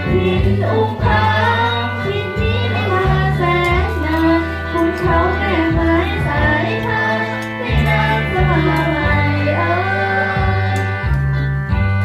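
Background music: a song with a singing voice over long held bass notes and backing instruments.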